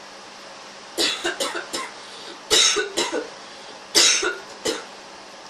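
A person coughing in three fits of several quick, harsh coughs each, the cough of someone who is ill.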